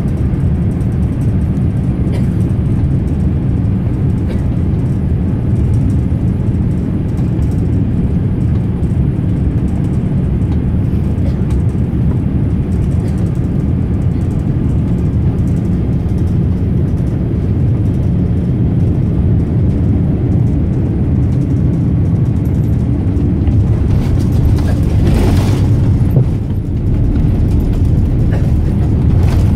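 Steady low rumble of a Boeing 787-8 Dreamliner's GE GEnx-1B engines and the airflow, heard inside the cabin on final approach. A brief hissing rush comes in near the end as the airliner touches down and rolls onto the runway.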